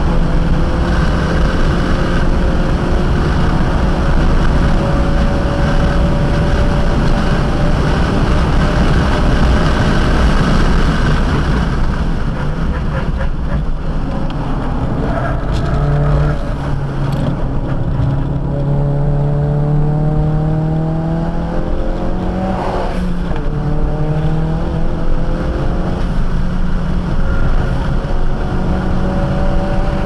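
Modified Ford Focus RS's turbocharged 2.3-litre four-cylinder with an aftermarket Borla exhaust, heard from inside the car at track speed. The engine note climbs under throttle, falls away about twelve seconds in as the car slows, then climbs again with a sharp rise in revs near the end of the middle stretch. Steady road and tyre noise runs underneath.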